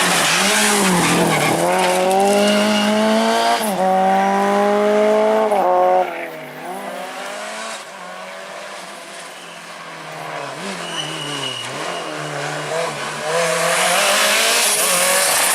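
Rally car engine at high revs, climbing in pitch and dropping back sharply at each gear change. It is loud for about six seconds, falls away to a quieter, more distant engine note that rises and dips, then comes loud again near the end.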